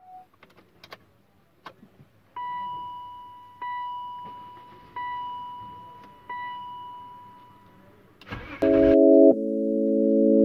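Ignition key clicks, then the BMW E39 dashboard warning chime dinging four times, each ding fading away, about 1.3 s apart. Near the end a short burst of noise as the engine is cranked and starts, and at once loud organ-like music comes in over it.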